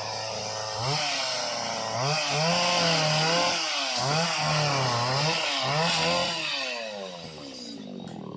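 Small two-stroke Stihl engine of a Cantas oil-palm pruning machine, idling and then revved up and down several times, the pitch climbing and falling with each rev before it drops back toward idle near the end.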